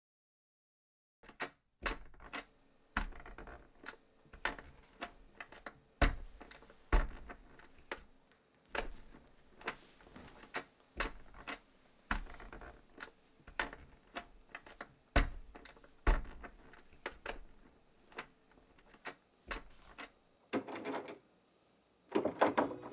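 Footsteps on a hardwood floor: irregular sharp knocks with low heel thumps, about one or two a second. Plucked ukulele music comes in near the end.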